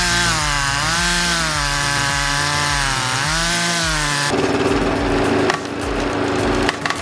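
A motor-driven saw cutting through wood, its pitch dipping and recovering as the chain bites. About four seconds in the cutting stops and gives way to a steadier machine hum, with a few sharp knocks near the end.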